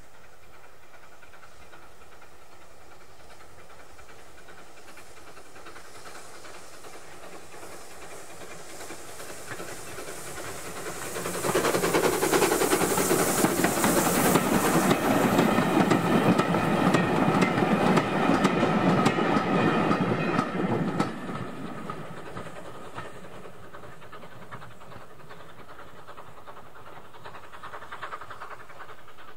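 Steam train with a small A1X 'Terrier' tank engine passing close by: a clattering rumble of wheels on the rails with steam hiss, building from about a third of the way in, loudest for about ten seconds as the engine and carriages go by, then dying away.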